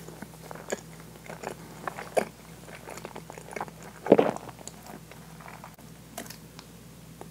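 Close-miked eating sounds: soft, wet chewing and mouth noises, with scattered small clicks. About four seconds in, a metal fork cuts through the very soft French toast and knocks against the wooden plate, the loudest sound.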